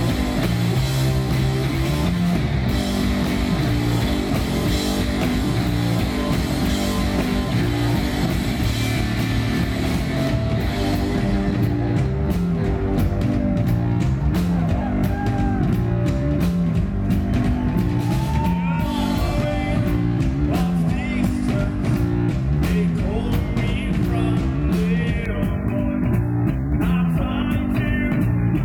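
Heavy rock power trio playing loud and live: distorted electric guitar, bass guitar and a drum kit with cymbals.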